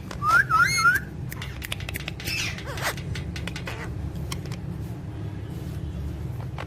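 A pet parrot gives a short wavy whistle near the start, then a few clicks and a brief harsh squawk, over a steady low hum.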